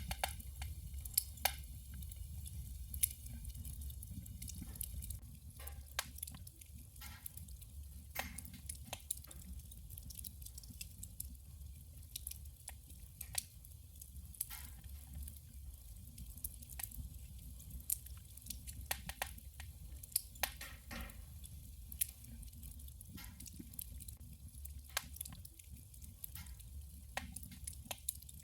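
Wood burning in a wood stove, crackling and popping at irregular moments over a low steady rumble of the fire.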